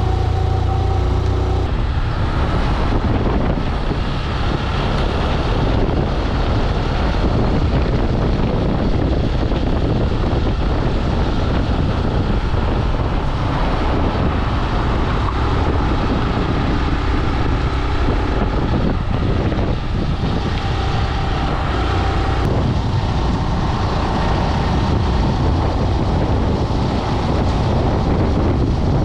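Steady, loud wind rushing over the microphone of a camera carried on a moving bicycle at riding speed, with a heavy low rumble.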